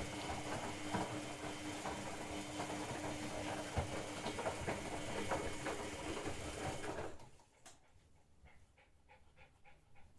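LG WD-80150TUP front-loading washing machine in its rinse cycle: a rush of running water with a steady hum and irregular clicks, which cuts off abruptly about seven seconds in, leaving only faint ticking.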